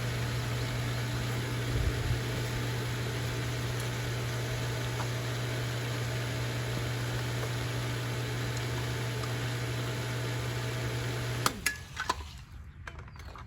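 Pool pump's electric motor running with a steady hum and rushing water, switched off suddenly about eleven and a half seconds in, followed by a few light clicks.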